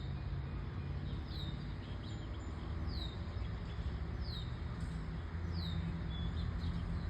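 A bird repeating a short, high call that falls in pitch, about every second and a half, over a steady low rumble of traffic that grows a little toward the end.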